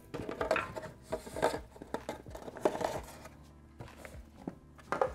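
Cardboard packaging being handled: a box insert lifted out and moved about, giving irregular rustles, scrapes and light taps.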